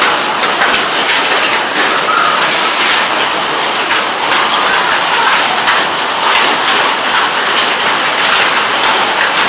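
Hailstorm: hailstones and heavy rain pelting down in a dense, steady clatter of many small impacts.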